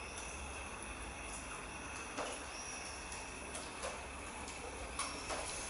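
Samoyed puppy gnawing a long-lasting chew treat on the floor tray of a wire crate: a few short, faint clicks and knocks over a low steady room hum.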